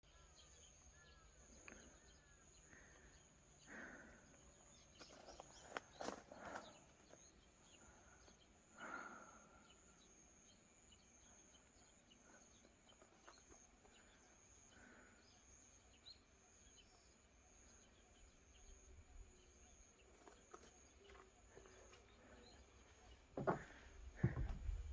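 Near silence, with a faint steady high-pitched insect trill and a few soft knocks and rustles, the loudest about six and nine seconds in.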